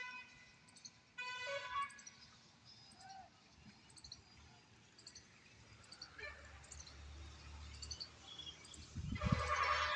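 Small bird chirping in short scattered calls. A louder tone with many overtones sounds about a second in, and a louder burst with a low thump comes near the end.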